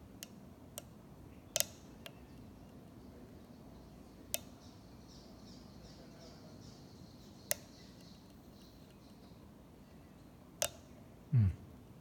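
Lock picking in an American 1100 padlock: about seven sharp, separate metallic clicks spread out, with a faint run of light rapid ticking in the middle. A dull thud comes near the end.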